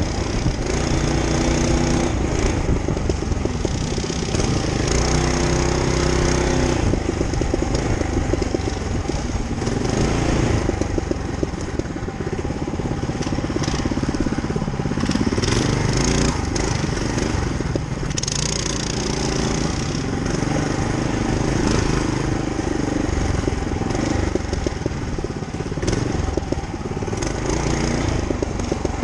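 Monster Moto 212 mini bike's 212cc single-cylinder four-stroke engine running under way on a dirt trail, its pitch rising and falling again and again with the throttle.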